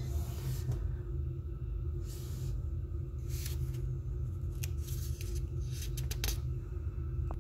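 A low, steady rumble with a few soft rustles and scuffs scattered through it: handling noise from a hand-held camera.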